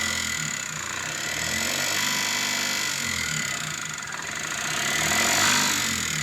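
Mahindra Supro's engine idling steadily after engine repair work meant to cure an abnormal noise, a little louder about five seconds in.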